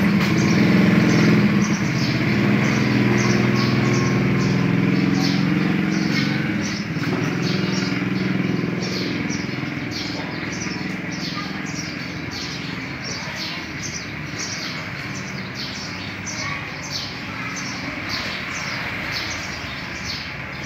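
A motor vehicle's engine running close by, loudest at first and fading out about seven seconds in. A bird chirps rapidly and repeatedly, two or three short falling chirps a second, from about five seconds on.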